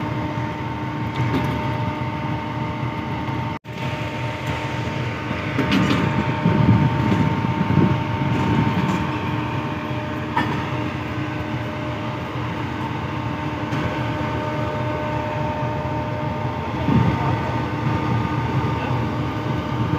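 Pakistan Railways GEU-40 diesel-electric locomotive idling at a standstill: a steady engine hum with several steady tones, and faint voices now and then.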